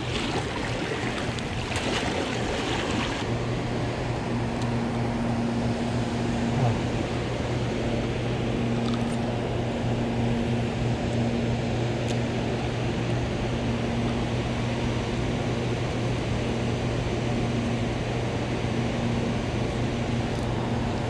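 A steady low mechanical hum, with a second, higher tone pulsing on and off from about four seconds in, over a wash of water noise.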